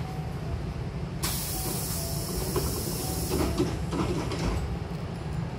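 Hankyu train's air-operated sliding doors closing: a sudden loud hiss of air starts about a second in, the door panels knock shut a little past the middle, and the hiss stops soon after, over the low rumble of the standing train.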